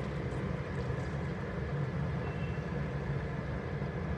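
Steady low rumble with a faint hiss from a gas stove on high flame and the mutton curry cooking in an open pressure cooker, its water freshly added.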